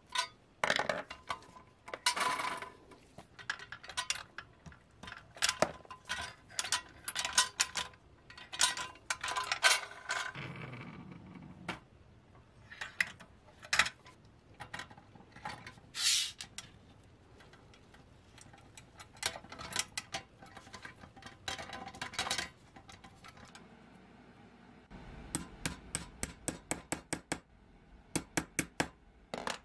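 Small metal and plastic toy parts being handled: sharp clicks and clinks of wheels, a screwdriver and the pressed-steel body of a toy tractor being fitted together. A few seconds before the end comes a quick, even run of light metal taps as an axle cap is set onto a wheel axle.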